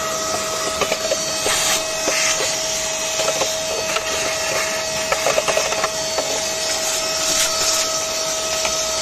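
Vacuum cleaner running with a steady whine while its hose nozzle sucks dirt and leaf debris out of an empty plastic air filter box. Bits of debris click and rattle as they are drawn up the hose.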